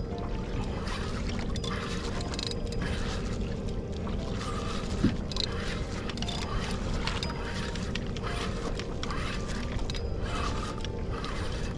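Water sloshing against a kayak hull, with a faint steady hum underneath. A single sharp knock comes about five seconds in.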